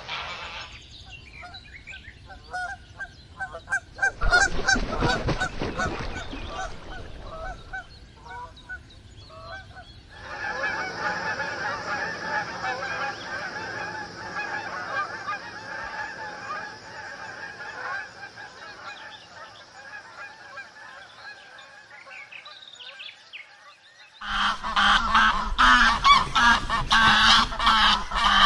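Geese honking in several recordings joined one after another: scattered calls at first, then a long, continuous chorus of a flock, then louder, dense honking near the end.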